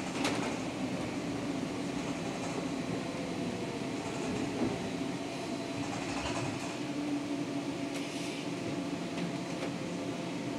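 Inside a Škoda 32Tr SOR trolleybus on the move: a steady electric drive hum over road noise, with a few faint clicks.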